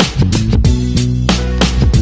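Background music with a steady beat: drum hits about three a second over sustained bass notes.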